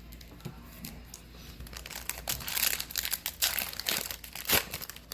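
A trading-card pack's wrapper being torn open and crinkled by hand: quiet at first, then a dense run of crinkling from about two seconds in, with one sharp louder crackle near the end.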